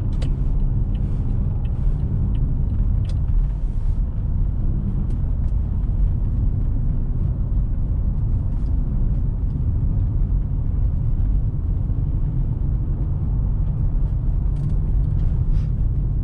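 Car driving on a snowy road: a steady low rumble of engine and tyres, with a few faint ticks in the first few seconds.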